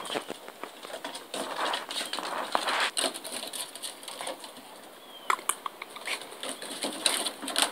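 Havanese puppies scrambling and tussling on wooden deck boards: an irregular run of claw clicks, scrapes and scuffles.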